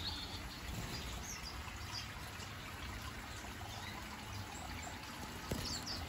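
Faint, short, high chirps of small finches and canaries scattered over a steady hiss, with a light knock near the end.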